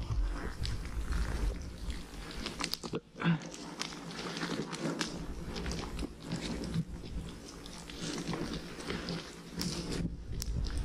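Irregular crunching and clicking of footsteps and pack-goat hooves on a steep, rocky trail, over a steady low rumble.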